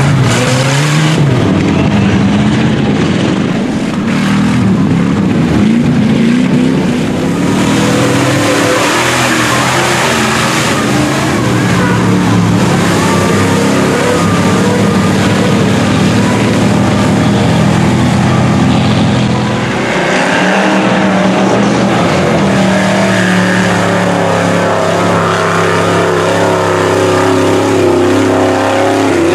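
Engines of lifted 4x4 mud trucks revving hard one after another as they plough through a mud pit, the pitch rising and falling with the throttle. A rushing noise of churned mud rides on top at times.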